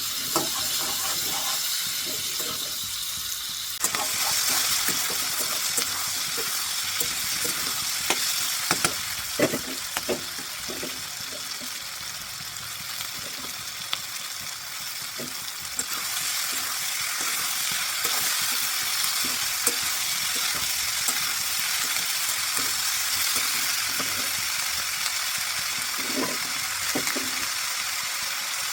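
Shredded cabbage sizzling as it is stir-fried in a pan, with a spatula stirring and knocking against the pan every so often. The sizzle gets louder about four seconds in, eases off around the middle, then picks up again.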